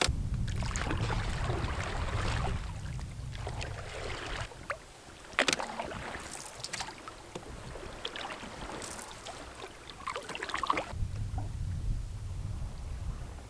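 Canoe being paddled: irregular splashing from the paddle strokes with a few sharp knocks, and wind buffeting the microphone at the start and again near the end.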